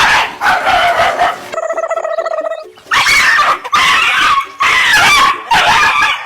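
A dog vocalizing loudly in several long stretches, with a steadier pitched whine in the middle.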